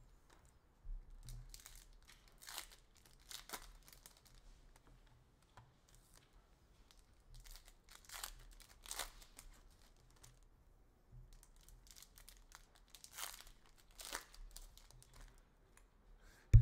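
Upper Deck hockey card packs being torn open, their wrappers crinkling in short, irregular bursts.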